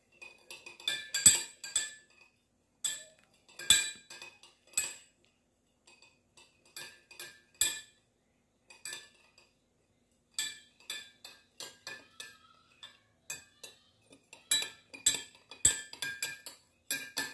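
Metal spoon stirring in a glass mug of water, clinking irregularly against the glass to dissolve sugar. The clinks come thick at first, thin out in the middle, then quicken again toward the end.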